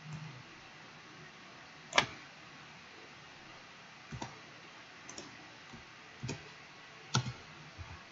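Scattered single clicks of a computer mouse and keyboard, about one every second, the loudest about two seconds in, with a few closer pairs near the end.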